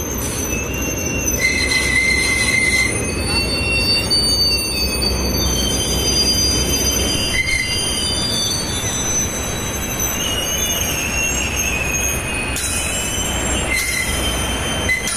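Loaded rail-carrying flat wagons (BRN type) rolling slowly, a steady low rumble with thin, wavering high-pitched wheel squeals that come and go, a few of them briefly sharper and louder.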